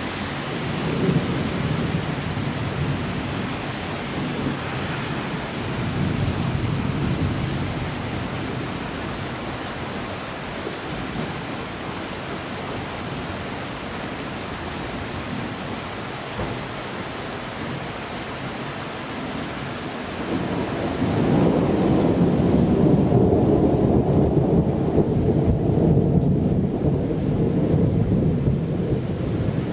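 Thunderstorm: steady rain with low rumbles of thunder, and a long, louder roll of thunder that builds about two-thirds of the way through and keeps rolling.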